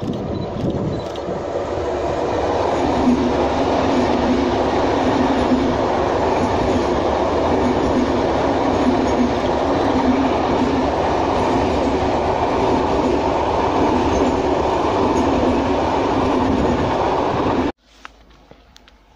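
VR Sm3 Pendolino electric train passing at speed: a steady rumble of wheels on rail with a low hum that sets in a few seconds in, cutting off abruptly near the end.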